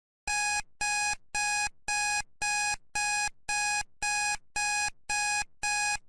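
Timer alarm going off at the end of the countdown: a train of identical electronic beeps of one steady tone, about two a second, starting abruptly just after the start.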